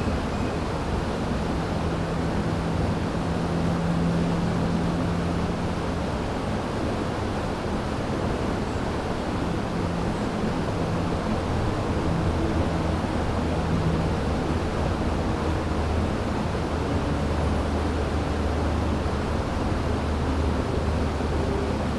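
River water flowing in a steady rushing noise, even and unbroken, with faint low hum-like tones wavering underneath.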